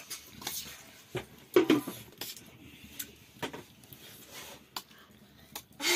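Scattered light clinks and knocks of a steel plate of rice being handled during a meal.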